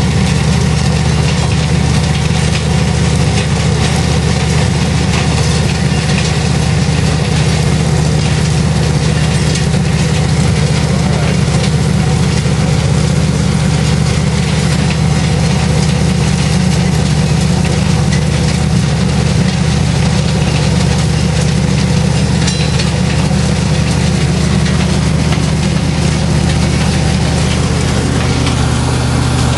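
A train's diesel engine idling on the track, a steady low rumble that holds unchanged throughout.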